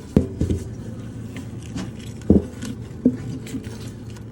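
Several sharp knocks and scrapes, the loudest just after the start and about two seconds in, with lighter clicks between, over a steady low hum.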